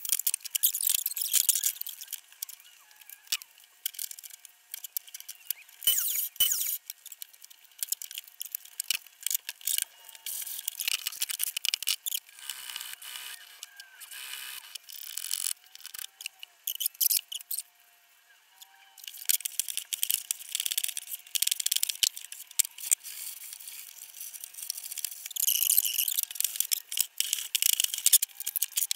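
Workshop handling noise: wood strips, hand tools and a mitre saw being moved about and set down on a wooden bench, with irregular clicks, knocks and clatter and a few quiet pauses. A faint steady thin tone sits underneath.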